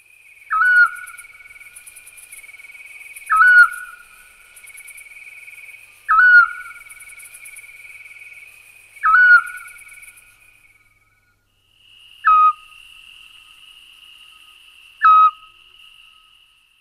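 Eurasian scops owl (Otus scops) calling: a single short, clear whistled note repeated six times, about every three seconds. A steady, higher-pitched trill runs behind the calls.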